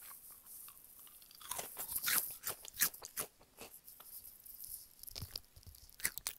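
Close-up ASMR crunching and chewing of a crisp snack. A dense run of crunches starts about a second and a half in and lasts under two seconds, followed by scattered smaller crunches and a few sharp clicks near the end.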